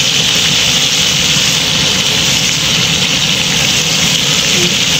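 Battered small yellow croakers deep-frying in hot oil, a loud steady sizzle of vigorously bubbling oil.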